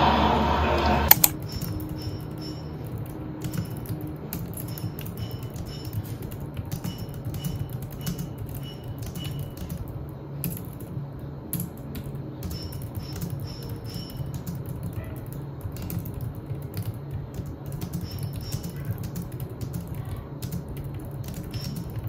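Speech cuts off about a second in, then fingers type steadily on a compact keyboard with round low-profile keys: an uneven run of light key clicks with short pauses.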